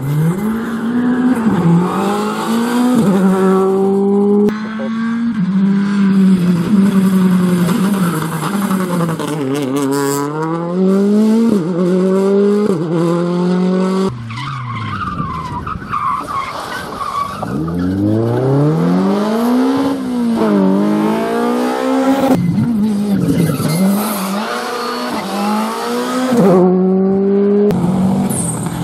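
Rally cars on a stage, one after another: engines revving hard, pitch climbing and dropping sharply with each gear change as they brake and accelerate through a corner, with tyres skidding on loose gravel. The sound jumps abruptly to a different car three or four times.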